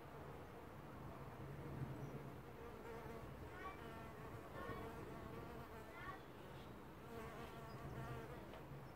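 A bee buzzing close by as it flies over and lands on the potting soil. The low, steady buzz swells and fades as it moves about, loudest about two seconds in and again near the end.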